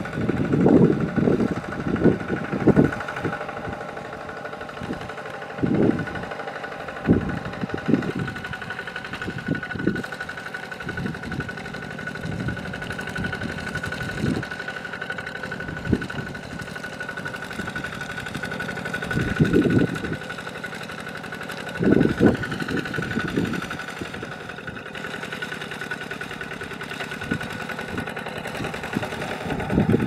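Single-cylinder diesel engine of a two-wheel walking tractor running steadily under load as it ploughs a flooded rice paddy on steel cage wheels. Irregular heavy low thumps break in, several near the start and a cluster about two-thirds of the way through.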